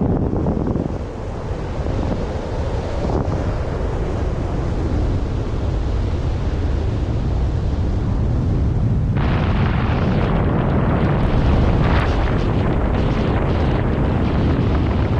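Wind from the paraglider's airflow buffeting the camera microphone: a loud, steady rushing rumble that turns hissier and brighter about nine seconds in.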